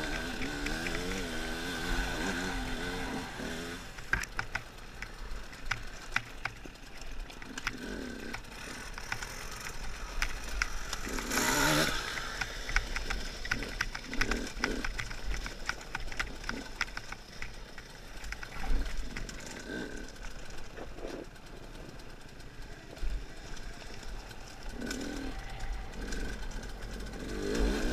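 KTM two-stroke enduro motorcycle engine revving up and down on a rocky trail, with the revs dropping back after about four seconds and rising again near the end. In between, rattles and knocks from stones and the bike over rough ground, and a brief loud rush of noise about eleven seconds in.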